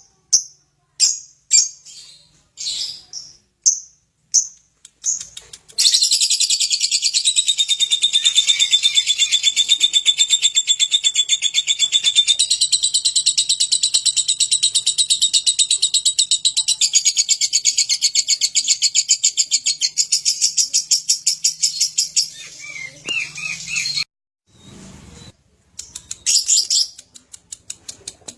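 Lovebird 'ngekek': a few separate high chirps, then about six seconds in a long unbroken, very rapid chattering trill that runs for some eighteen seconds and stops abruptly, followed by a few more chirps near the end.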